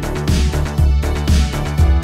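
Background music: an instrumental track with a steady beat, about two beats a second over a strong bass line.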